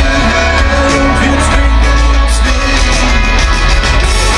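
Rock band playing live through a large open-air PA, heard from within the crowd: loud drums, guitar and heavy bass.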